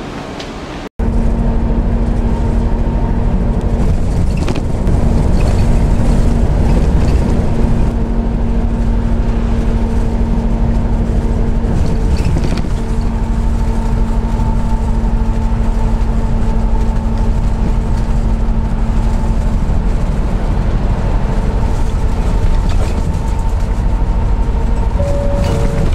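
Steady engine drone and road rumble heard from inside a coach on the highway, with a constant low hum and a few steady tones above it. It starts suddenly about a second in, after a quieter stretch of street ambience.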